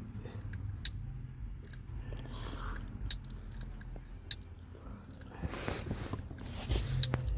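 Close-up handling noise: a few sharp clicks a second or two apart, with soft crackling and rustling that grows louder for a couple of seconds near the end.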